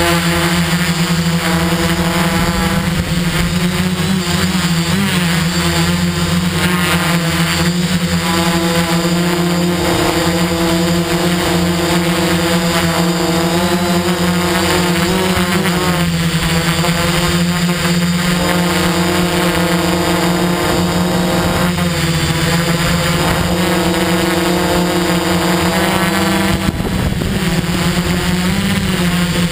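Multirotor drone's electric motors and propellers whining steadily close to the microphone, the pitch wavering slightly.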